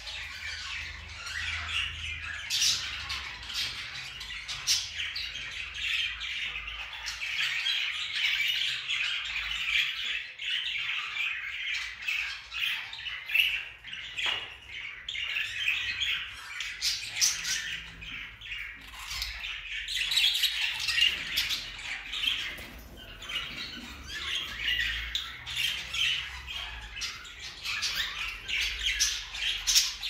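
Many caged budgerigars chattering and squawking at once in a continuous dense din, with sharp short chirps throughout.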